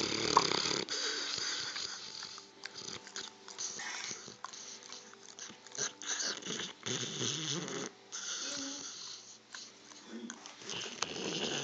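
A dog snoring in its sleep: several snores a few seconds apart, with quieter breathing between them.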